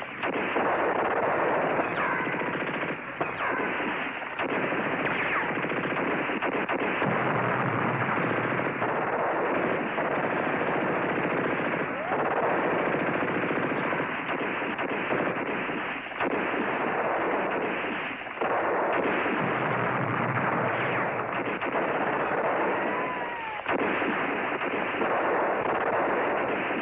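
Battle sound effects from an old war-series soundtrack: continuous machine-gun and rifle fire mixed with explosions, dense and unbroken. A few brief whistling whines rise and fall through it. The sound is dull and muffled, with no treble.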